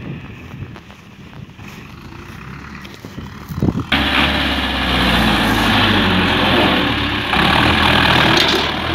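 Ursus C-360 tractor's four-cylinder diesel engine running. It is faint at first, then suddenly loud and close from about four seconds in.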